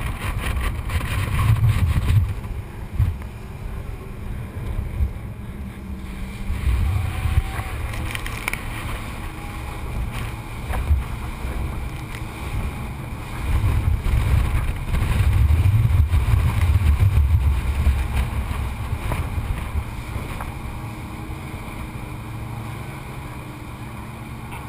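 Rigid inflatable boat under way at speed: a rush of wind and water spray along the hull, heard through a sealed waterproof camera case, with surges of low rumble. The longest rumble comes about two-thirds of the way through.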